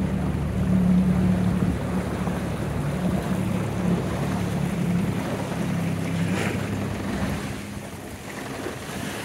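Single outboard motor pushing a 16-foot jon boat at low speed: a steady low hum that eases a little near the end. Water and wind noise run under it.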